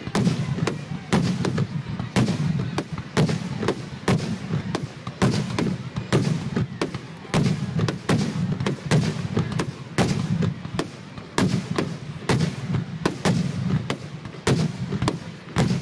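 Fireworks finale barrage: aerial shells launching and bursting in quick succession, sharp booms and cracks coming two or three a second without a break, over a continuous low rumble.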